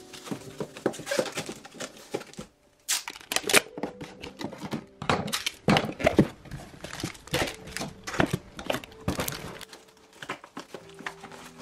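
A cardboard shipping box being folded and assembled by hand: a run of irregular creases, crinkles and knocks of the board, with a brief pause about two and a half seconds in.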